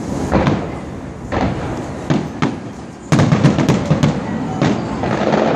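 Aerial fireworks going off, a series of booming bursts, then a dense run of rapid bangs and cracks starting about three seconds in.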